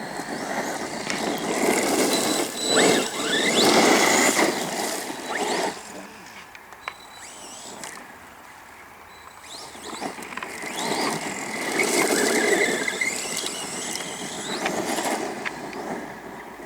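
Arrma Granite BLX 3S radio-controlled monster truck driving in two runs, its brushless motor whining up and down in pitch over a broad rushing noise. The first run fills the opening six seconds; the second starts about ten seconds in and fades near the end.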